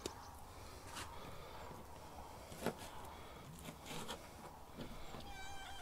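A knife cutting and scraping through a raw lamb carcass and the meat being pulled apart by hand: faint slicing and rubbing with a few small clicks. Near the end comes a short high-pitched animal call.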